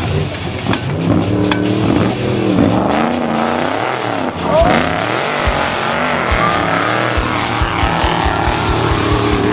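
Off-road race truck's engine running hard, the revs rising and falling repeatedly as the throttle is worked, with occasional sharp knocks and a run of low thumps in the second half.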